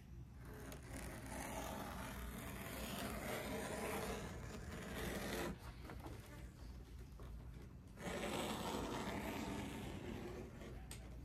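A razor knife scraping along the steel-edged straight edge as it scores 7 to 8 ounce leather, in two long drawn strokes: one of about five seconds, then a shorter one starting about eight seconds in. These are light scoring passes rather than a single cut straight through.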